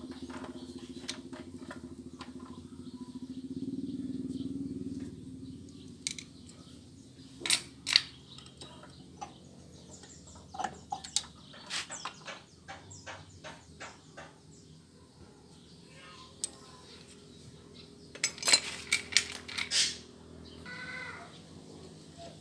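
Scattered metallic clinks and knocks of hand tools and engine parts during work on a motorcycle's cylinder head, with a quick cluster of sharp clicks near the end. A low steady hum fades out about five seconds in.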